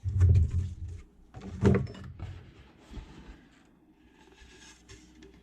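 Parts and packaging being handled while unboxing a vise: a knock at the start and another about a second and a half later, with rustling between, then quieter rustling.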